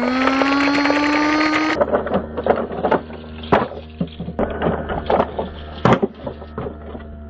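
A drawn-out spoken 'go', held on a slowly rising note for a couple of seconds. It is followed by a toy dump truck clattering and knocking as it rolls and tumbles over rock, a run of irregular knocks with a few louder bangs.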